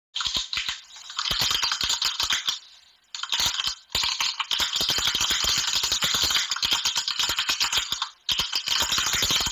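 Keyboard typing sound effect: a fast, continuous run of key clicks that pauses briefly twice.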